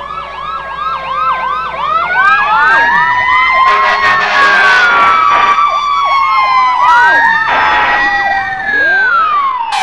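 Fire engine sirens sounding together: a fast repeating yelp, about four sweeps a second, under slower wail tones that rise and fall over several seconds.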